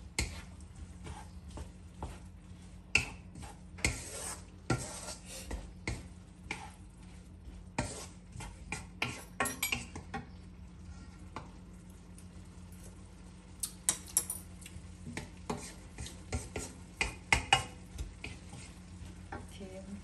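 Wooden spatula stirring and scraping a stir-fry in a metal wok, with irregular knocks and scrapes against the pan and a light sizzle; the stirring pauses briefly about halfway. A steady low hum runs underneath.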